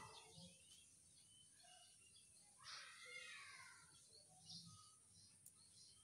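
Near silence with faint, scattered bird chirps, rising into a brief flurry of calls about three seconds in.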